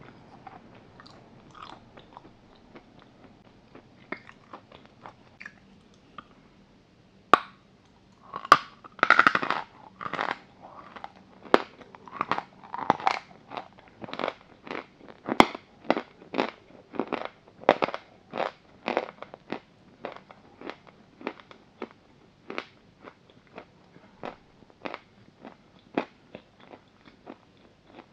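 Chalk being bitten and chewed close to the microphone. After several seconds of faint small mouth sounds, a sharp crack comes about seven seconds in as a piece snaps off. Dense crunching follows and thins into evenly spaced chewing crunches, about one or two a second.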